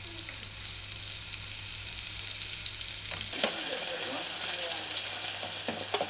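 Sliced red onion and pandan leaves sizzling in coconut oil in a small pan over a gas flame, softening. About three seconds in the sizzle gets louder and a spoon stirs them, with a few sharp knocks of the spoon against the pan.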